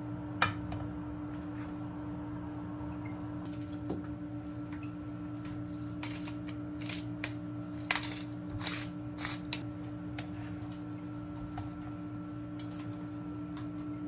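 A steady low hum with scattered light clicks and clatters of small hard objects being handled, most of them between about six and ten seconds in.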